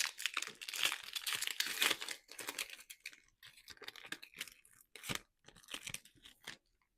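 Foil wrapper of a Score football card pack being torn open and crinkled by hand, loudest in the first couple of seconds, then lighter scattered crinkles as the cards are pulled out.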